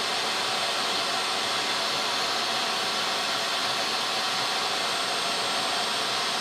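Vacuum source of a CNC router's vacuum table running, a steady even rush of air with no change in level. It is pulling vacuum through the bed to hold a T-shirt flat and tight.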